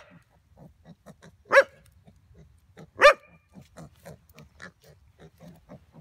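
Dogs play-fighting: three sharp barks about a second and a half apart, over a quick run of short grunting sounds, about four a second.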